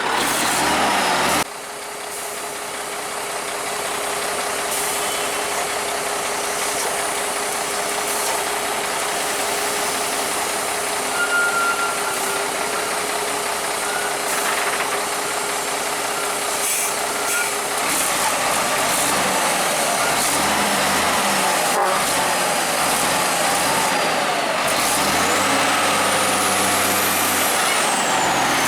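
Heavy trucks running on the road, a steady engine and road noise, with a high whine that rises and then falls near the end.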